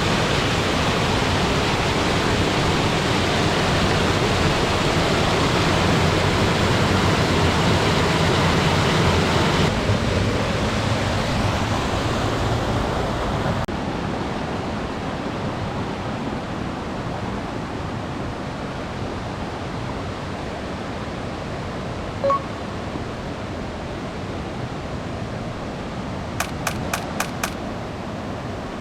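Steady rush of water from a tall plunge waterfall, louder for about the first ten seconds and then softer. A brief short tone sounds about 22 seconds in, and a quick run of five sharp clicks comes near the end.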